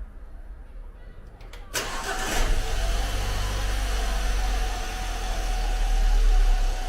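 Car engine of a Great Wall WEY, freshly overhauled and with two parts replaced that were blamed for a knock, cranked and started for a test. It catches suddenly about two seconds in and settles into a steady idle.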